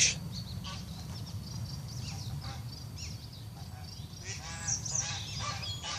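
Geese honking, a scattered series of calls that grows clearer about four seconds in, over a steady low rumble.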